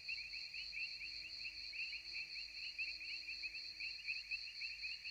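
Faint steady chirring of insects, a rapid pulsing trill with a steady higher hiss above it, plus a faint low hum for most of the first four seconds.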